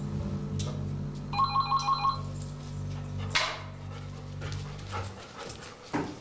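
Telephone ringing with a rapid warbling electronic ring. One burst comes about a second and a half in and the next starts at the very end.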